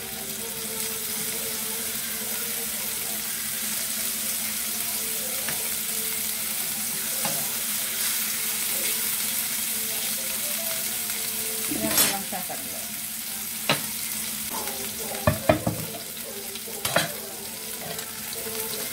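Thin slices of chicken breast sizzling as they fry in a little oil in a nonstick pan, with a few sharp knocks in the second half.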